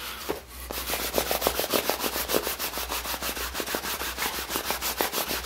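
A cloth pad made from a t-shirt rubbed fast back and forth over a leather jacket, working shoe polish into the leather: an even, rapid scrubbing rhythm of several strokes a second.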